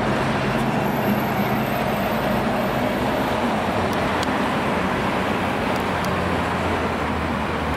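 Car engine idling with a steady, even low note under general street noise.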